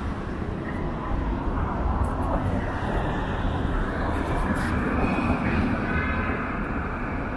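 City street traffic: cars and a van driving through an intersection, over a steady low rumble.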